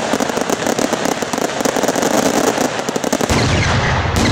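Wolff 'Cruelty' firework going off in a dense, rapid string of bangs and crackles. About three seconds in, the cracking thins out and a low rumble takes over.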